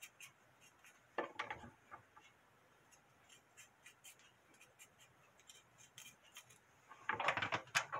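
Chef's knife slicing a carrot on a wooden cutting board: light, irregular taps of the blade, with two louder stretches of cutting noise, about a second in and near the end.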